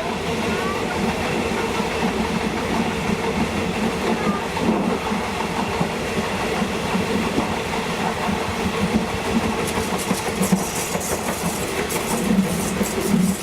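A train running along the track, with a steady rumble and the clickety-clack of its wheels over the rails. A run of sharper rattling clicks comes in near the end.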